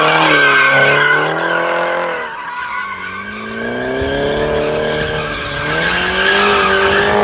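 BMW drifting, its tyres squealing steadily while the engine revs rise and fall. The revs drop about two seconds in, then climb again and hold.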